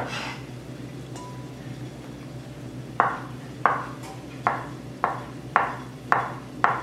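Hollow-edged kitchen knife dicing boiled potato on a plastic cutting board: seven crisp chops about every half-second, starting about three seconds in, over a low steady hum.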